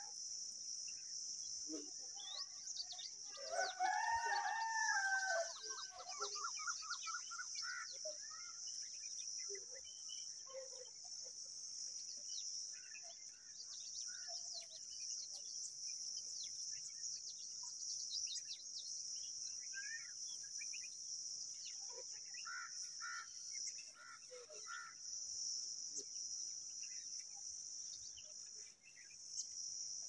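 A rooster crows once about three seconds in, an arching call that is the loudest sound, over a steady high-pitched drone of insects. Short bird chirps come and go through the rest.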